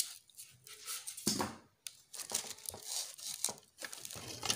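Plastic wrapping and foam packing sheet crinkling and rustling in irregular bursts as hands move packed appliance jars around inside a cardboard box.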